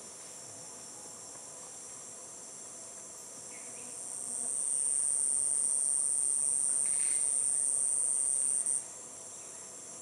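Rainforest insects trilling in a steady, high-pitched chorus. About four seconds in, one louder, higher buzz joins the chorus; it cuts off abruptly a second before the end.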